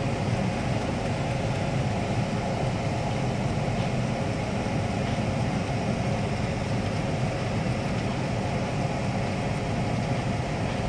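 Steady hum of a car idling with its air-conditioning fan blowing, heard from inside the cabin.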